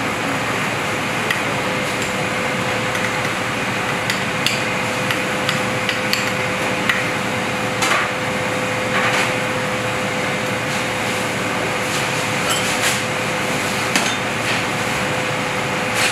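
Steady rush of kitchen ventilation with a constant hum, over which a metal spoon clicks and taps against a stainless-steel ring mould while tuna tartare is pressed into it, in scattered light knocks.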